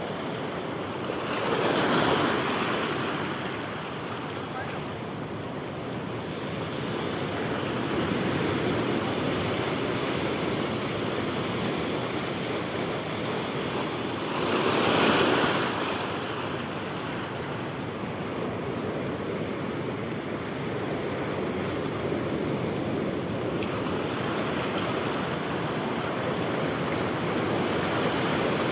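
Sea surf washing over a rocky reef flat, a steady rush with two louder surges of breaking waves, one about two seconds in and another about halfway through.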